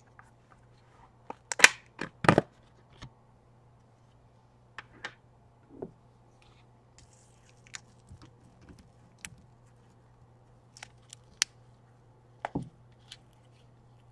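Plastic ice-cream tub being opened: a few loud snaps of the lid coming off about two seconds in. Scattered clicks and scrapes follow as a metal spoon digs into the ice cream, over a faint steady hum.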